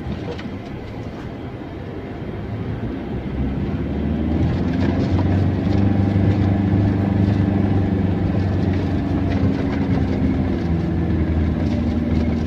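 Car engine running and tyres rolling over a rough, patched concrete road, heard from inside the cabin, with small knocks and rattles from the bumps. About four seconds in the engine grows louder into a steady low drone.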